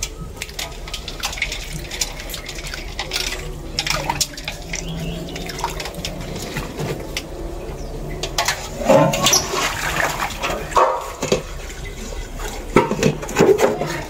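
Water splashing and sloshing in a metal basin of ice water as blanched water spinach is stirred and lifted in it, with irregular light splashes. The splashing is loudest about nine seconds in and again near the end.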